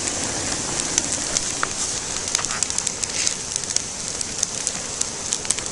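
Wood fire crackling and hissing, with frequent sharp pops.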